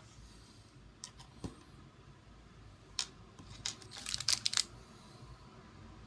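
Small sharp clicks and taps of a tiny screw and M.2 standoff being handled on a motherboard: single clicks about one and three seconds in, then a quick run of clicks around four seconds in.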